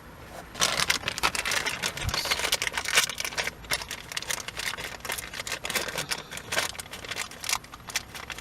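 Dense run of quick plastic clicks and crackles from the new trunk light switch and its packaging being handled. It starts about half a second in and thins out near the end.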